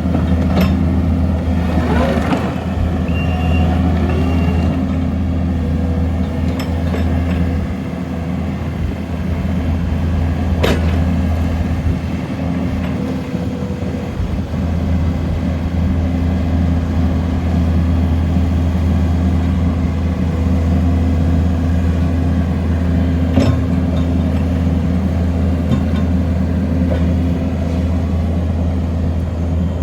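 Kubota SVL75-2 compact track loader's four-cylinder diesel engine running steadily with a deep, even drone, easing slightly a few times, with a few sharp clicks or knocks from the machine.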